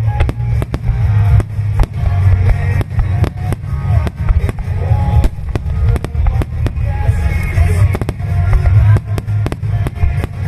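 Aerial firework shells bursting, many sharp bangs in quick succession, over a rock song with a heavy bass line.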